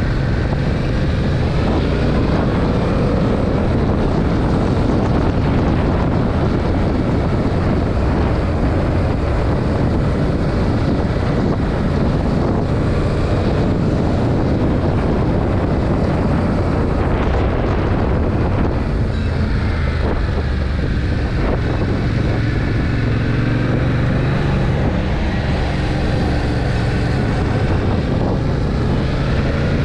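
2021 Yamaha MT-07's 689 cc parallel-twin engine through its stock exhaust, ridden on the road, with the engine note rising and falling as the revs change, mostly in the second half. Wind noise on the microphone runs underneath.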